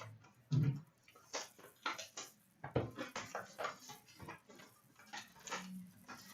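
Hands opening a sealed Upper Deck Ice hockey card box: a dull thump about half a second in, then irregular crinkling and crackling of shrink-wrap and cardboard with light clicks.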